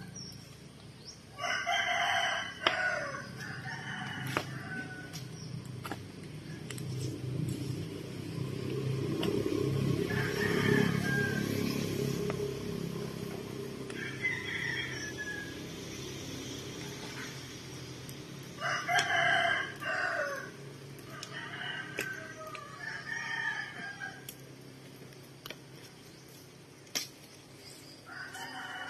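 Roosters crowing repeatedly, one call after another through the stretch, with a few sharp cracks and a low rushing swell in the middle.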